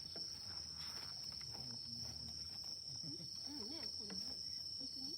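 Crickets chirping in a continuous high, steady trill. About three seconds in, a faint voice murmurs briefly.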